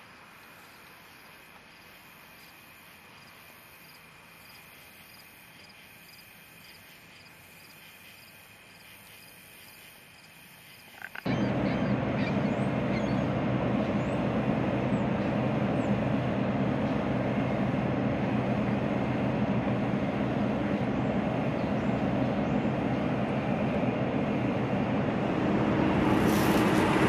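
Faint, steady chirring of evening insects; then, about eleven seconds in, a sudden switch to a loud, steady rumbling noise with a low hum running under it.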